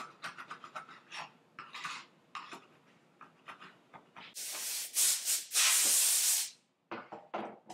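Steel card scraper rasping across an oak board in quick short strokes, then a compressed-air blow gun hissing loudly for about two seconds to clear off the shavings and dust.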